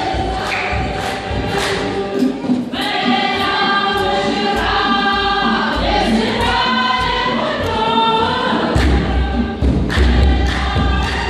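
Congregation singing an Ethiopian Orthodox hymn (mezmur) together over a steady beat of sharp strikes, a little under two a second. A deep low beat comes in near the end.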